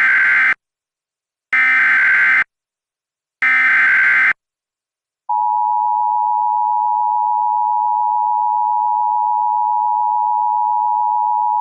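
Emergency Alert System tones: the tail of one SAME header data burst, then two more one-second bursts of digital data tones about a second apart. About five seconds in, the steady two-tone EAS attention signal (853 and 960 Hz) starts and holds.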